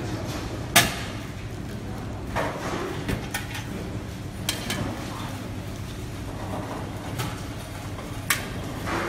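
Scattered sharp knocks and clatters of a stainless steel tray and plastic baskets being handled on a stainless steel work table, the loudest about a second in and another near the end, with plastic sheet rustling as it is folded over the tray. A steady low hum runs underneath.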